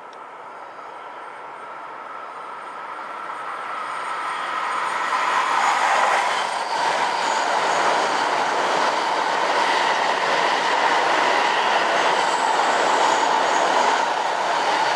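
A Tohoku Shinkansen train passing through the station at speed on the parallel track. A rush of train noise builds over the first five seconds or so, then stays loud and steady as the cars go by.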